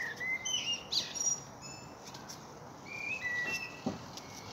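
Songbirds chirping, short whistled notes and quick glides at several pitches, with a soft thump about four seconds in.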